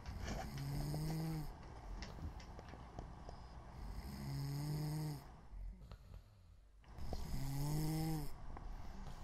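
A person imitating snoring: three snores about three and a half seconds apart, each a low buzzing tone over a breathy hiss.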